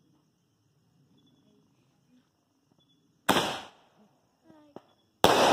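Fireworks going off: a sudden loud bang about three seconds in that fades within half a second, a few faint crackles, then another loud bang just before the end.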